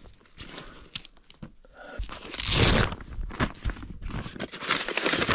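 Rustling and crunching from a backpack being handled and gone through, with two louder bursts of rustling, about two seconds in and again near the end.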